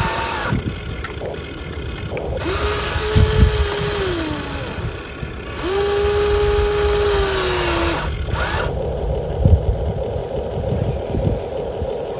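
Small electric motors of a radio-controlled construction model whining in three bursts, each rising in pitch as it starts and sagging as it stops, over a hiss; after the last burst a lower steady hum with a few knocks.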